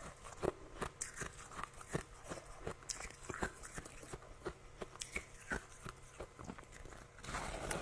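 Close-up biting and chewing of soft, powdery freezer frost, a quick run of small sharp crunches. Near the end the crunching comes thicker.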